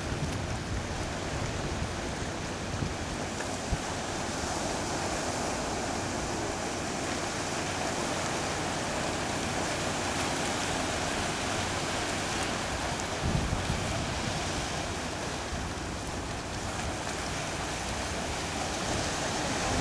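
Ocean surf breaking and washing over a rocky shore, a steady rushing wash, with wind rumbling on the microphone now and then, strongest a little past the middle.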